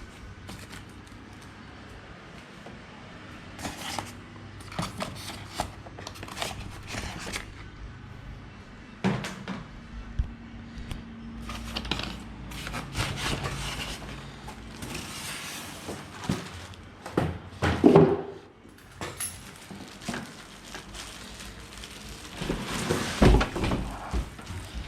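Irregular knocks, clunks and rustling from handling a boxed Midea evaporative air cooler and its plastic parts and packaging, with the loudest clunks about two-thirds of the way through and near the end.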